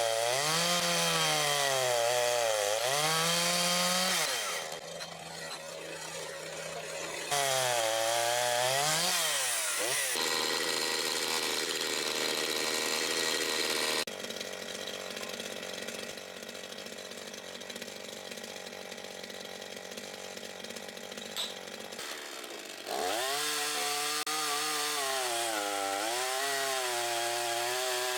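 Makita DCS5121 50 cc two-stroke gasoline chainsaw revved up and down in waves, falling back to a quieter steady idle twice for several seconds before revving again near the end.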